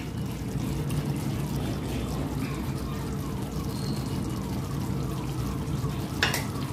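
Dum aloo gravy simmering in a steel kadai, a steady bubbling.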